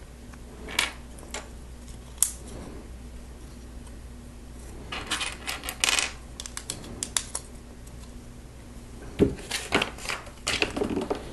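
Plastic Lego bricks clicking and clattering as pieces are picked from a loose pile on a table and pressed onto a build. Short scattered clicks come in two busy clusters, around the middle and near the end.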